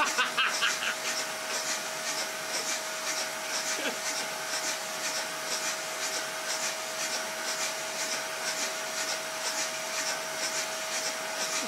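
Vacuum cleaner running steadily, supplying suction to a home-built bellows air engine, with a regular pulse about twice a second as the engine's valve switches and the bellows cycle.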